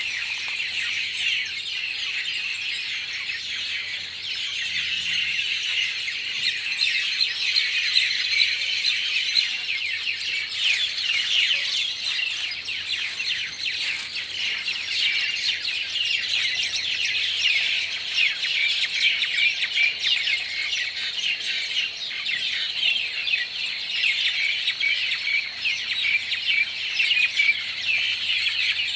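A large flock of birds gathering at their roost, chirping and squawking together in a dense, continuous chorus.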